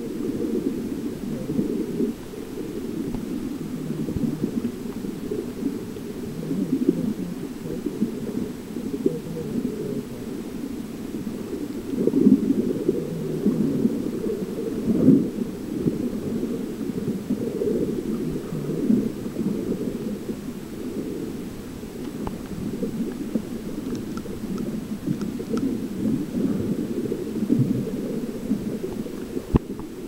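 Muffled, low rumbling water noise picked up by a camera microphone held underwater in a tide pool, swelling and easing as the water and camera move, with stronger surges about twelve and fifteen seconds in.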